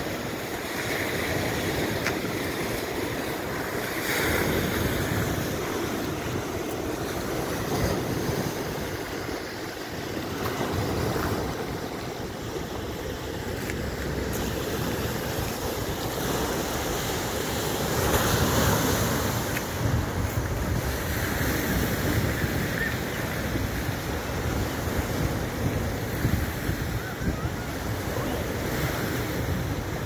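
Surf breaking and washing over a rocky shore in repeated surges, with wind gusting over the microphone.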